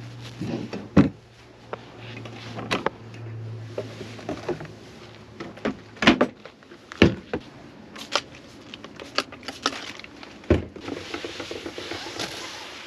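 Drawers and cabinet doors in an RV kitchen being opened and shut, with several sharp knocks and clatters. Near the end comes the soft rubbing of a microfiber cloth wiping a glass cooktop.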